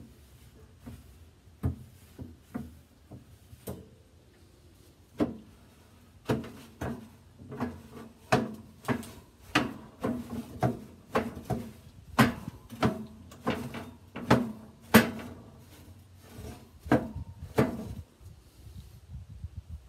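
Metal grill grates rattling and knocking as a hand rubs them down with an oiled rag: irregular clanks, sparse at first, then about one or two a second, stopping near the end.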